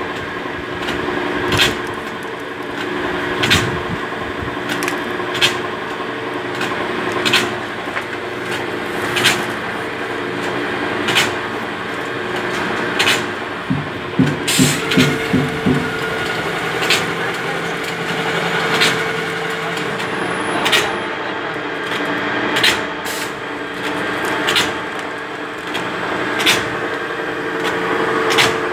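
Powder bag-filling machinery running: a steady hum with a sharp click about every two seconds. About halfway through comes a quick rattle of knocks, after which a steady higher tone holds.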